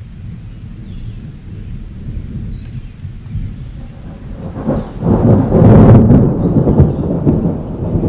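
Low rolling rumble of thunder that swells loudly about halfway through and keeps rumbling unevenly.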